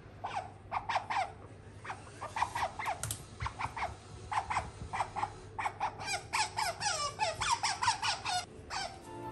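Asian small-clawed otter chirping: quick runs of short, high squeaks that each fall in pitch, coming in bursts and busiest in the second half.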